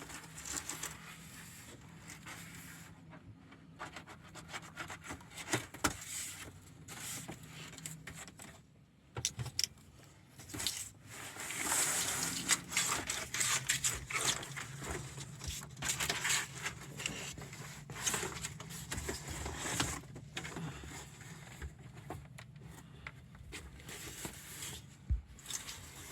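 Cardboard solar-panel packaging being handled and opened: irregular scraping, rubbing and crackling of cardboard, loudest and busiest in the middle, over a faint steady low hum.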